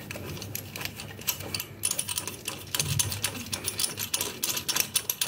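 Small metal faucet fittings clicking and rattling in the hands, a quick irregular run of light ticks, as the new faucet's lock nut is fitted on from underneath.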